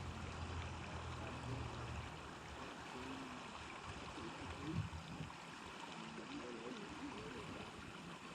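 River current running and rippling, a faint steady wash of water, with a low hum for about the first two seconds.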